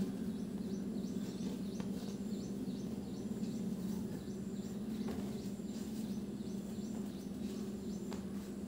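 Steady low background hum with a run of quick, short high chirps, about three a second, through the first half.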